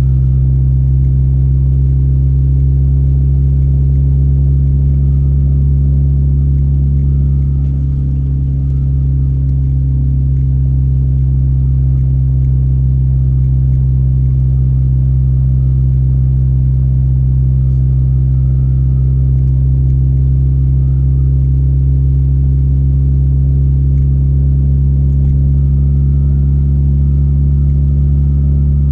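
Car engine and road noise heard from inside the moving vehicle: a steady low drone that dips slightly about eight seconds in.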